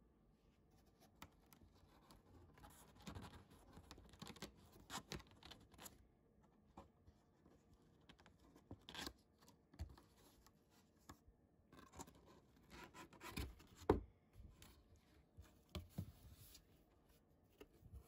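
Cardboard packaging handled by hand: box flaps and a tab scraping and rustling, with scattered clicks and knocks, the sharpest about fourteen seconds in.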